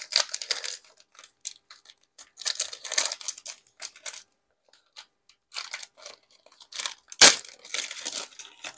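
Plastic wrapper of a retail trading-card pack crinkling and tearing, in irregular bursts, with one sharp click about seven seconds in as the loudest sound.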